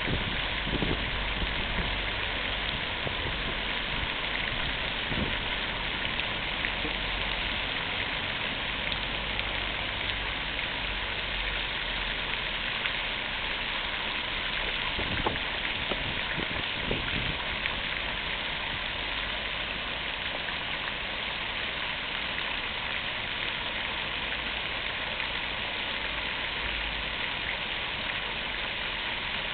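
Fountain water splashing steadily into its basin: a constant hiss of falling water. A low rumble runs underneath, with a few soft thumps.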